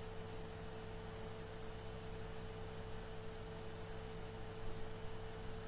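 Steady background hum with a constant higher tone over faint hiss; nothing else happens.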